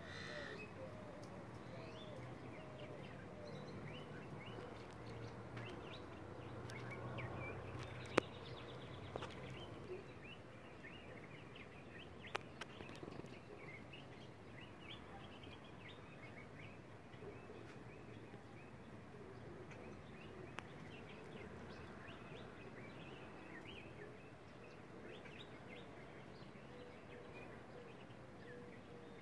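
Faint outdoor background with many short bird chirps throughout and a low hum during roughly the first ten seconds. Two sharp clicks stand out, one about eight seconds in and one about twelve seconds in.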